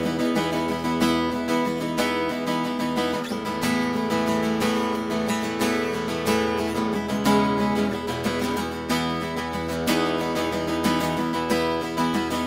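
Background music led by a strummed acoustic guitar, playing at a steady rhythm.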